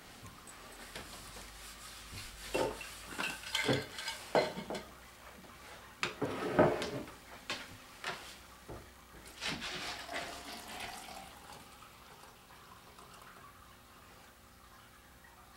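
Glasses and a juice jug clinking and knocking on a countertop as they are handled, a run of sharp clinks loudest about six and a half seconds in. Then fresh vegetable juice is poured from the jug into a glass.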